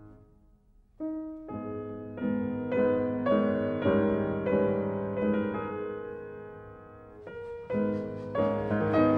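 Solo piano music. After a second of near silence a new phrase begins with single notes that build into fuller chords, fades, and a fresh phrase starts about seven seconds in.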